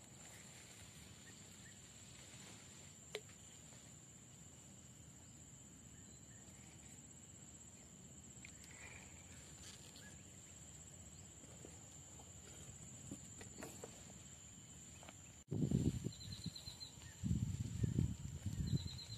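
A faint, steady, high-pitched insect drone from the riverbank vegetation over quiet outdoor ambience. Near the end it breaks off abruptly and gives way to loud, irregular low rumbling.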